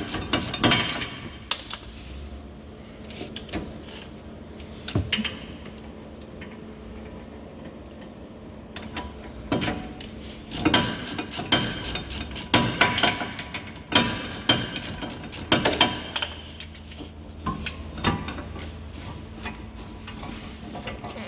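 Metal hand tools working on a car's rear brake caliper bolts: sharp clicks and clinks of wrench, socket and bolts, sparse for the first several seconds and then frequent.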